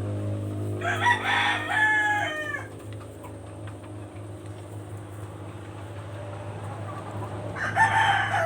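Rooster crowing twice: one full crow about a second in, and a second crow starting near the end. A steady low hum runs underneath.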